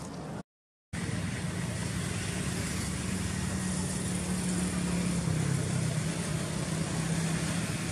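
A steady low engine hum, typical of a motor vehicle running nearby, over an even outdoor background hiss. The sound drops out completely for about half a second near the start.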